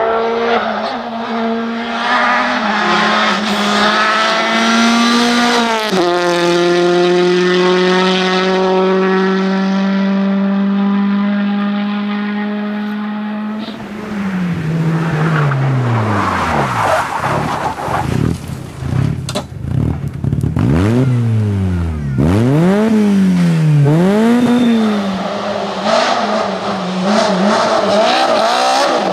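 Rally car engines at full throttle on a special stage: revs held high, with a sharp upshift about six seconds in. About halfway through the revs fall and rise several times as the cars brake and work the throttle through corners. Tyres squeal in places.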